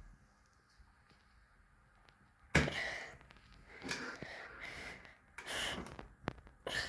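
A few short, breathy puffs of effort from a child straining to push a stiff smoke-alarm test button. The first comes about two and a half seconds in, after near silence.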